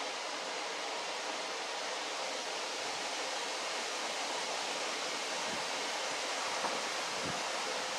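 Steady rushing background hiss, even and unbroken, with a few faint low knocks in the second half.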